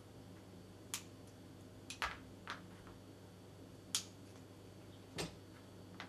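Glass pliers snapping the ends off narrow strips of gold-backed royal glass, with the small pieces and tools clicking down on the table: about six short, sharp clicks, the loudest about two-thirds through.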